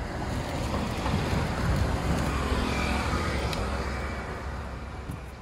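Street traffic rumble: a steady low drone, swelling about two seconds in as a vehicle goes by, then slowly dying away.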